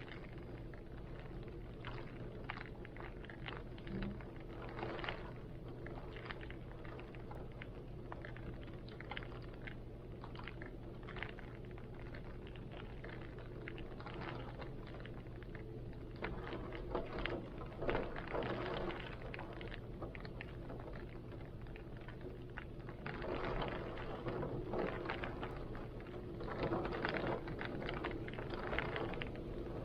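Rain falling in irregular taps and drips, with heavy wind gusting over a steady low hum; the wind swells louder in the second half.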